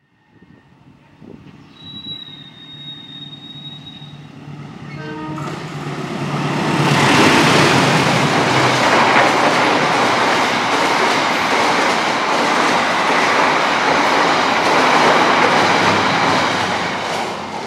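CC 206 diesel-electric locomotive hauling a passenger express past close by. Its engine drone grows as it approaches, with a thin high whine for about two seconds. Then comes a loud, steady roar of carriage wheels on the rails as the train passes, easing off near the end.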